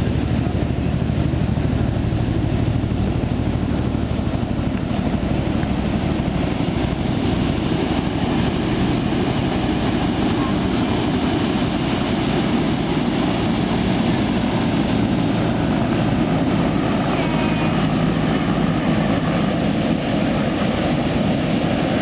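Ocean surf rushing steadily onto the beach, with a heavy low rumble underneath.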